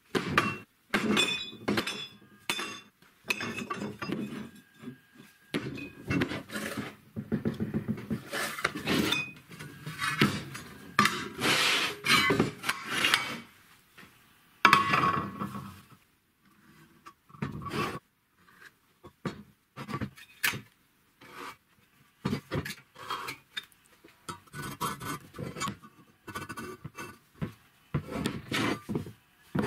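Steel square tubing handled on a wooden workbench: irregular clinks and knocks as pieces are set down and shifted, with rubbing and scraping on the metal in between.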